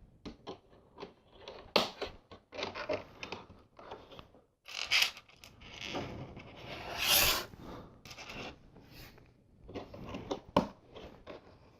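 LEGO bricks being handled and fitted: small plastic clicks and taps as pieces are picked up and pressed on, with rustling and scraping as loose parts are rummaged through, loudest in two stretches near the middle.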